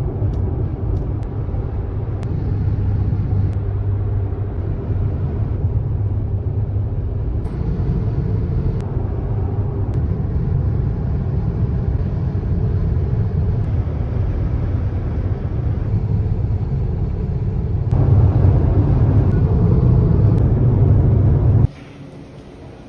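Car driving on the road: steady rumble of road and engine noise. It grows louder near the end, then cuts off suddenly.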